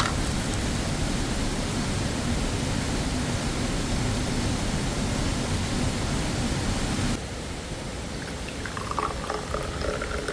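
Steady rushing of a waterfall, which cuts off abruptly about seven seconds in. What follows is a quieter background with a few faint short tonal sounds near the end.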